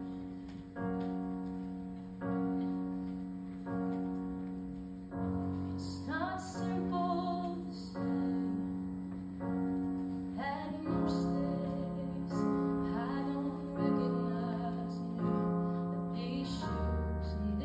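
A girl singing a slow song into a microphone over piano chords. The piano plays alone for about six seconds, one held chord roughly every one and a half seconds, each fading away, then the voice comes in.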